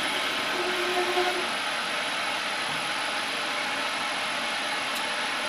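Grizzly metal lathe running steadily with its spindle turning during a threading pass, the carriage driven on the half nut for a light 50-micron infeed cut on an M20 external thread. A faint brief whine rises out of the steady noise about half a second to a second and a half in.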